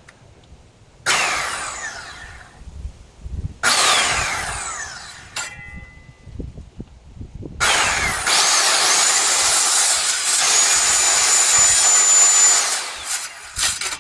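Skil corded circular saw triggered twice in short bursts, its blade whine falling away each time as it coasts down. On the third pull it spins up to a steady high whine and runs for about five seconds, cutting through wood, then stops near the end.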